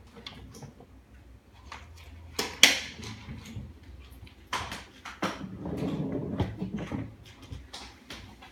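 Scattered clicks and scrapes of a bearded dragon's claws on sandstone rock as it walks, with one sharp loud click about two and a half seconds in and a longer scraping rustle from about five to seven seconds in.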